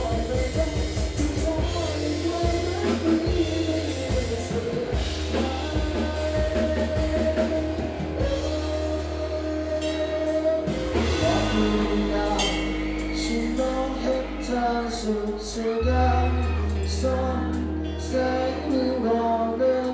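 Live rock band playing: a male singer over electric guitar, bass guitar and drum kit. About four-fifths of the way through, the music cuts abruptly to a different song.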